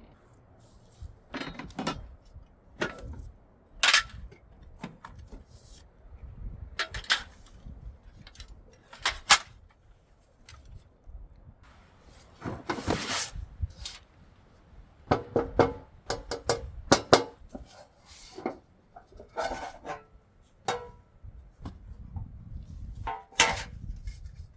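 Irregular knocks and clatter of hard objects being handled and set down, some with a short metallic ring.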